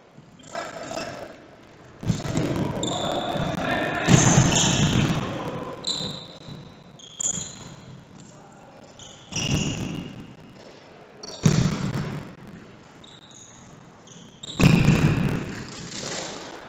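Futsal match play in a sports hall: about six sharp ball kicks and thuds, each ringing on in the hall, with short high squeaks and voices in between.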